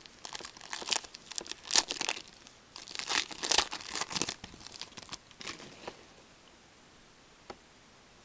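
Foil trading card pack being torn open, its wrapper crinkling and crackling for about six seconds, followed by a single sharp click near the end.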